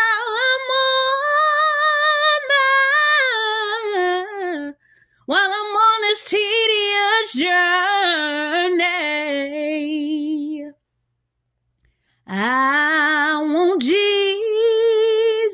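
A woman singing a gospel spiritual unaccompanied: three long, drawn-out phrases with no clear words, their held notes wavering in vibrato. She breaks off briefly about five seconds in and again for over a second about eleven seconds in.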